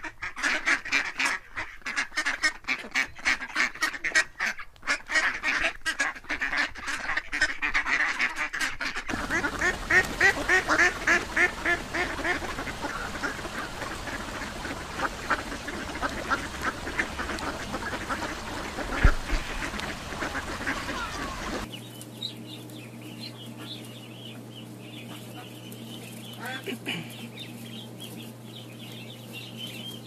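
Ducks and ducklings calling: rapid quacking and peeping. About two-thirds of the way in it changes to fainter, high duckling peeps over a steady low hum.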